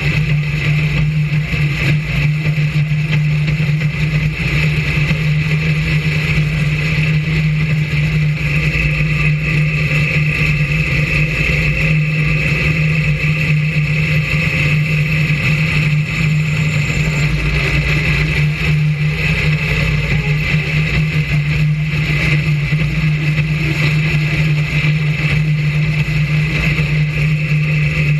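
Brisca F1 stock car's V8 engine running at a steady, even pitch, heard loud and close from a camera mounted on the car.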